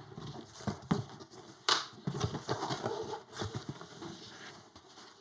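A PC case's cardboard box being opened and the case worked out of its packing: rustling and scraping of cardboard and packing with scattered knocks, the sharpest about a second and a half in.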